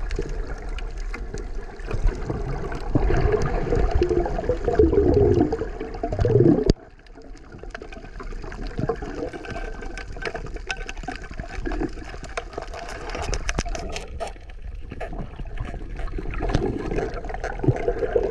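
Water gurgling and sloshing around a diver swimming in the sea. About seven seconds in it drops suddenly to a quieter, steady underwater sound with scattered faint clicks.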